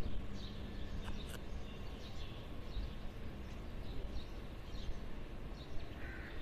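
Outdoor background noise with faint, scattered bird chirps and a steady low hum for the first two seconds.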